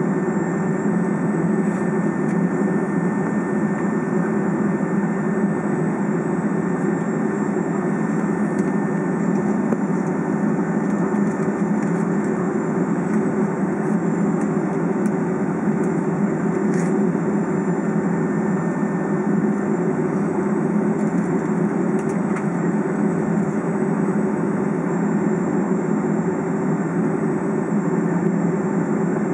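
Cabin noise of a Boeing 757 taxiing in after landing: idling jet engines and cabin air give a steady low drone with a faint high whine.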